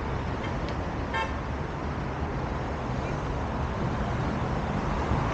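Steady road-traffic noise with an even rushing haze, and one short high-pitched toot about a second in.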